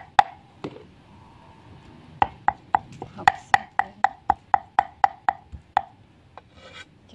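Heavy cleaver chopping down onto a thick round wooden chopping board, mincing a soft paste. Sharp woody knocks: two near the start, then after a short pause a run of a dozen or more at about four a second, stopping near the end.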